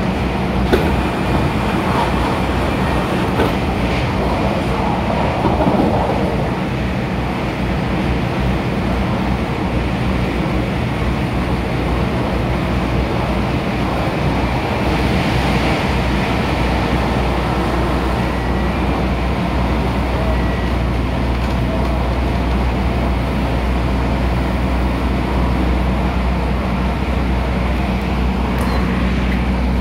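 MTR Tung Chung line A-train electric multiple unit running along the line, heard from inside the carriage: a steady low rumble with constant wheel and track noise.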